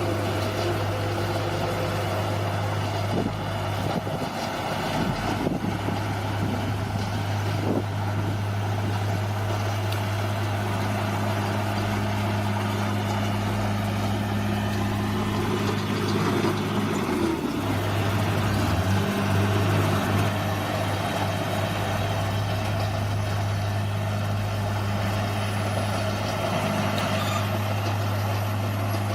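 Bulldozer diesel engine running steadily with a deep hum, with a few clanks in the first several seconds. The engine note dips and shifts about two-thirds of the way through, then settles again.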